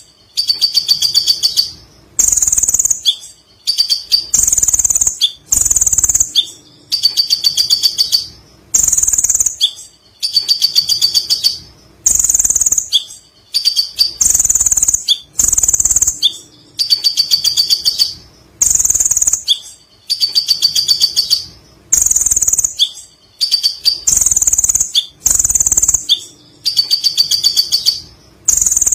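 Kolibri ninja sunbird singing in loud, high-pitched bursts of rapid trilling, each about a second long, repeated steadily with short pauses between them.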